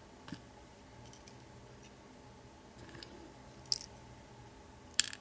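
A few light clicks and ticks of small padlock pins and springs being handled and set down while the lock is taken apart. The loudest click comes a little before four seconds in.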